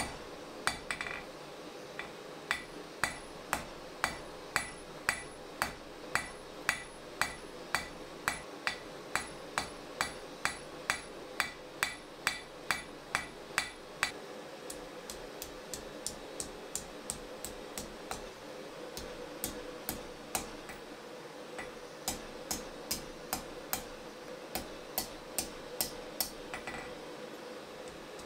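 Blacksmith's hammer forging a red-hot steel bar on an anvil, sharp blows at about two a second. The blows drop to light taps for a few seconds midway, then resume, over a steady hum.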